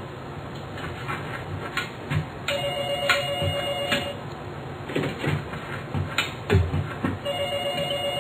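A telephone ringing in long single rings of about a second and a half, one roughly every five seconds, with dull thumps in between.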